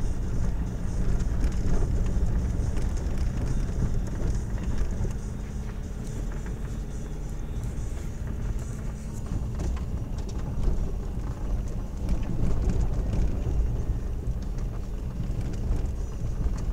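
Car driving over a rough, broken road, heard from inside the cabin: a steady low rumble of engine and tyres, with frequent knocks and rattles as the wheels hit the uneven surface.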